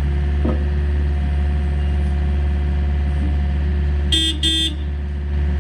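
Volvo EC55C mini excavator's diesel engine running steadily, with two short toots of the horn about four seconds in.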